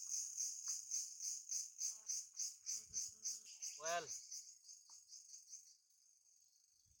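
Insects chirping in a fast, even pulse of about four a second, high-pitched, fading to a fainter steady buzz about six seconds in. A short falling-pitched call cuts across it about four seconds in.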